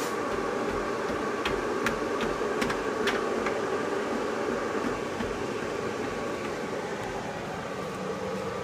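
A steady mechanical hum like a fan or air conditioner running, with a few light clicks between one and three and a half seconds in.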